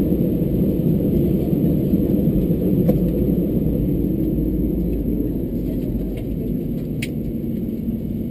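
Steady low rumble inside a parked Airbus A320-214 cabin, the ventilation still running, with a couple of faint clicks.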